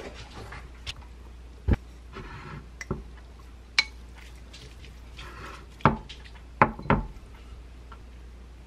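Wooden spoon stirring and scooping fried rice in a ceramic bowl: several sharp clacks of spoon against bowl, with short bursts of scraping in between.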